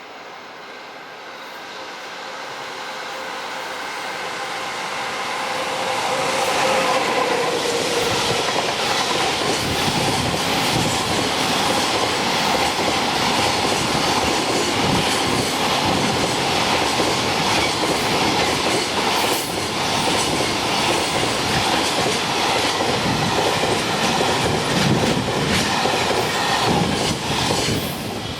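A freight train on electric-locomotive-hauled freight track approaches and passes close by, its wheels clattering over the rail joints. The sound grows over the first few seconds, stays loud and steady through a long run of wagons, then falls away sharply near the end.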